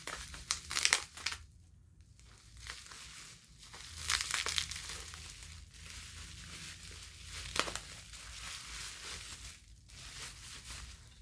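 Packaging wrap crinkling and rustling in irregular bursts as it is unwrapped by hand from a small glass piece, loudest in the first second and again about four seconds in.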